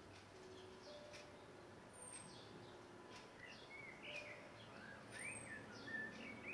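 Faint birds calling: thin, high, short chirps repeat throughout. A lower warbling song joins from about halfway in.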